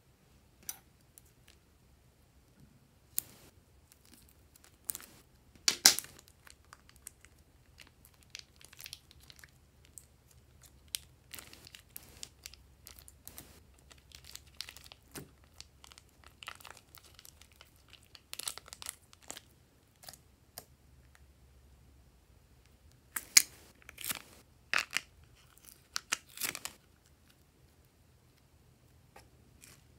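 Sticky glossy slime being squeezed from a plastic piping bag and kneaded by hand: irregular clusters of crackles, pops and tearing snaps with short pauses between them. The loudest snaps come about six seconds in and again past the three-quarter mark.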